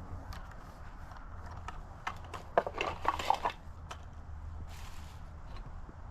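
Scattered metallic clinks and rattles of scrap being handled, bunched together about halfway through, over a steady low hum.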